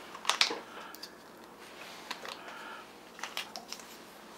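Small plastic toy pieces and packaging being handled on a table: a handful of light clicks and rustles spread through, as the parts of a miniature Kerplunk game are unpacked.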